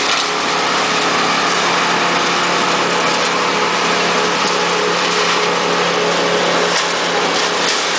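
Engines of work equipment running steadily: a constant machine drone with hiss over it and no change in speed.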